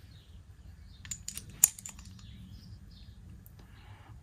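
Light clicks and taps from a steel long socket being handled, a short cluster about a second in with one sharper metallic click. Birds chirp faintly in the background.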